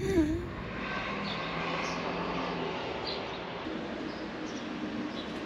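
Steady outdoor city ambience, a wash of distant traffic, with a few faint bird chirps scattered through it.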